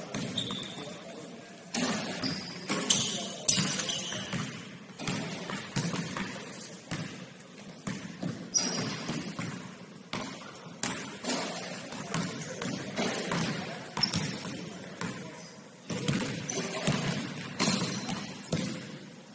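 Basketball game play: a ball bouncing on the court, with thuds at uneven intervals and a few brief high squeaks.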